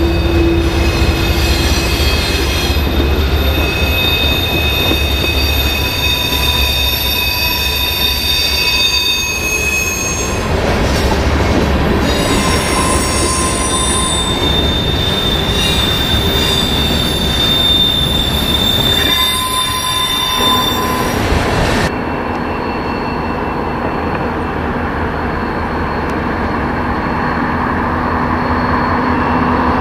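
Canadian Pacific freight train rolling past close by, with locomotives at first and then boxcars, tank cars and covered hoppers. The wheels squeal in several high, steady tones over the rumble of the cars. About two-thirds of the way through, the sound switches abruptly to the steadier, more distant rumble of a Norfolk Southern diesel locomotive leading a train.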